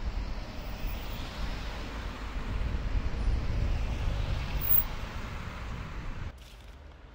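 Steady low rumble with wind buffeting the microphone, cutting off abruptly about six seconds in to a much quieter background.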